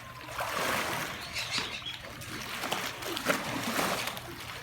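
Swimming pool water sloshing and splashing in uneven waves, still set moving by the earthquake's shaking.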